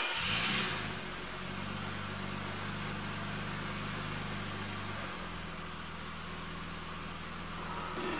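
A 1983 Mercedes-Benz W123 280CE's 2.8-litre straight-six fires up with a short burst, then idles steadily. About five seconds in the idle settles a little lower. The restorer suspects an exhaust or vacuum leak toward the front of the engine.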